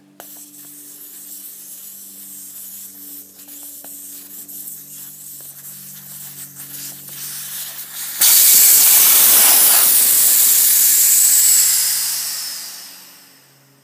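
Air hissing out of a lawn mower tire's valve stem with the valve core being removed. A steady hiss jumps much louder about eight seconds in, then fades away over the last couple of seconds as the tire empties.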